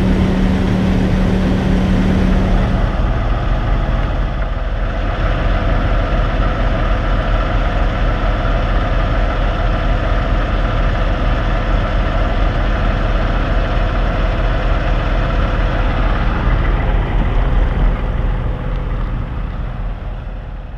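Heavy diesel engines of loaded logging trucks idling steadily. The idle changes about three to four seconds in, from one with a strong low hum to one with a steadier higher drone, and fades away near the end.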